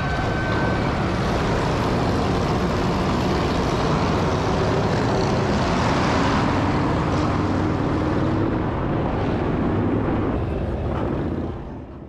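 Several motorcycle engines running and revving loudly together as a group of bikes pulls away.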